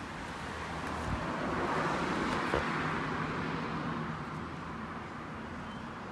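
A car driving past, its road noise swelling to a peak about two and a half seconds in and then fading away.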